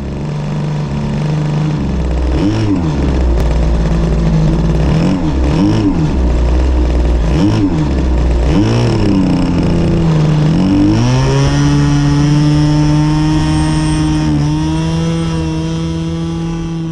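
Evolution 10cc two-stroke gas engine of a large RC Piper J3 Cub, heard close from under the wing. The throttle is blipped up and down several times, then about ten seconds in it revs up sharply and holds a steady high pitch as the model is opened up for its takeoff run.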